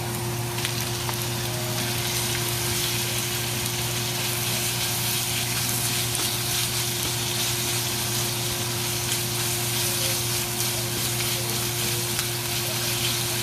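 Beef, chicken and shrimp sizzling steadily in hot oil in a pan on high heat while being stirred, over a steady low hum. The sizzle grows louder about half a second in.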